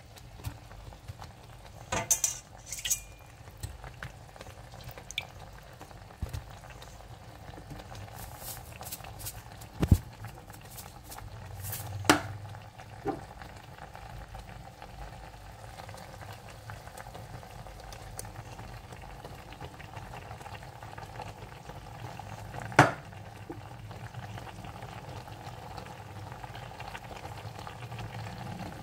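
A stainless pot of whole chicken and vegetables cooking on the stove, with a steady hiss that slowly grows louder. A handful of sharp knocks and clinks stand out above it.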